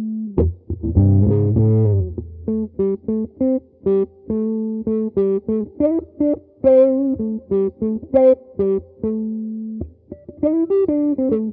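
Les Paul-style electric guitar played through an Analog Man Block Logo envelope filter (auto-wah): a rhythmic run of short picked notes, with a fuller chord ringing briefly about half a second in. The threshold and attack are being set to match the guitar and how hard it is picked.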